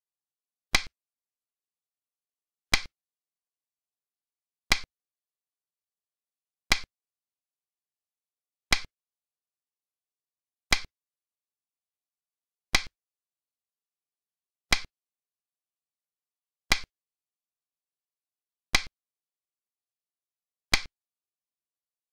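Xiangqi move sound effect: a short, sharp click of a piece being set down, repeated eleven times at an even two-second beat.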